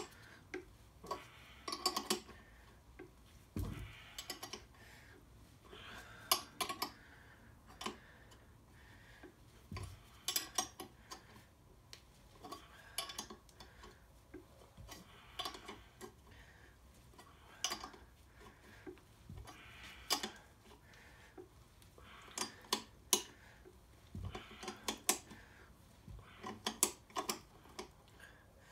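Metal hand tools clinking and clicking against engine parts: scattered sharp metallic taps and ticks, some in quick clusters, with a few dull thumps.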